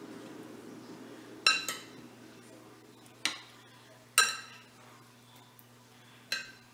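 Metal spoon stirring chopped apples in a glass bowl, clinking against the glass four times with a short ringing tone, the third clink the loudest.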